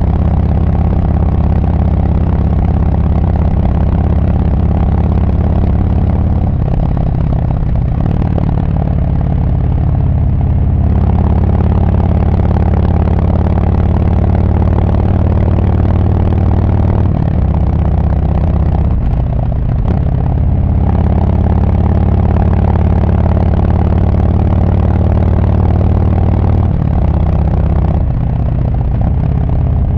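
Harley-Davidson Sport Glide's V-twin engine running on the road through Screamin' Eagle Street Cannon mufflers, a deep, steady exhaust note. The note changes pitch three times, with shifts or throttle changes.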